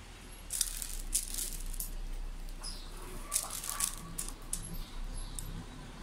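A sparrow pecking at wheat grains in a wooden feeder, its beak knocking grain against the wood in short bursts of clicking and rattling, about half a second in, just over a second in, and again around three and a half seconds in.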